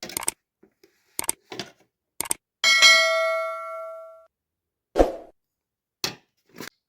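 Metal kitchenware being handled: a series of sharp clinks and knocks, one of which, about two and a half seconds in, sets a metal vessel ringing with a bell-like tone that dies away over about a second and a half.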